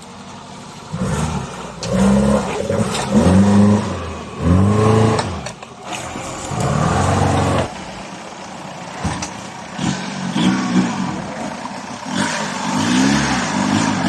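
Off-road 4x4's engine revved hard in repeated short bursts, its pitch rising and falling with each blip of the throttle, as the vehicle strains to climb out of an obstacle.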